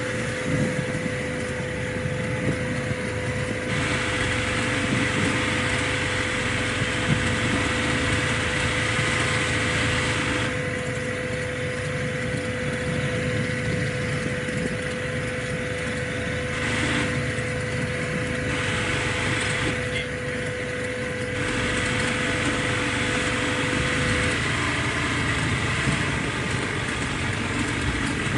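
Motorcycle engine running under way, with wind noise on the camera microphone that grows and eases several times. A steady tone runs under it and stops about three quarters of the way through.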